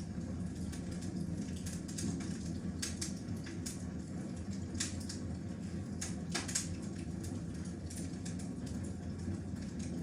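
Wood fire burning in a fireplace, crackling: irregular sharp pops and snaps, a few in quick clusters, over a steady low roar of the flames.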